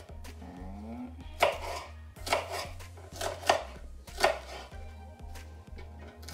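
Kitchen knife chopping an orange bell pepper into small pieces on a cutting board, about six sharp strikes at an uneven pace.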